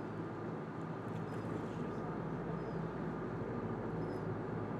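A boat engine runs with a steady drone over wind and water noise, with a few faint, short, high bird calls.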